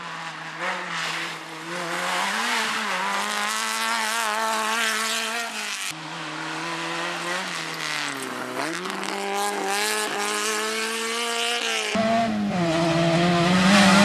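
Off-road rally buggy engines running hard on a gravel stage, the pitch rising and falling with throttle and gear changes. Around eight seconds in the revs drop sharply and climb again. The engine note jumps abruptly about six and twelve seconds in.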